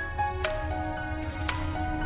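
Gentle instrumental background music: sustained melodic notes over a soft low bed, with a sharp accent about once a second.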